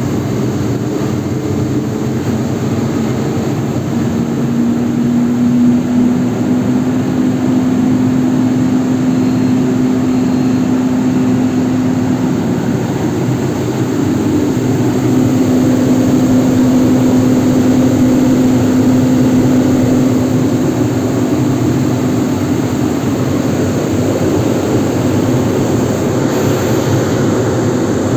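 Blowers of a glass tempering furnace running: a loud, steady rushing drone with a steady hum underneath.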